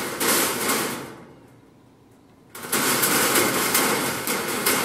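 Hands clapping in quick applause, in two runs: the first fades out about a second in, and the second starts after a short pause, about two and a half seconds in.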